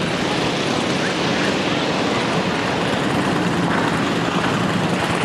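A motor vehicle's engine running steadily under a constant rushing noise.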